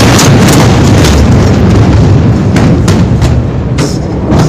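Blast of a massive explosion overloading a phone's microphone: a loud, distorted deep rumble that slowly fades, broken by several sharp crashes of falling debris.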